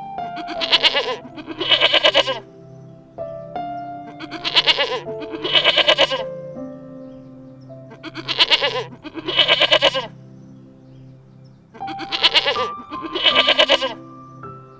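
Bleating calls in four pairs, each pair two wavering cries about a second apart, over background music with held notes.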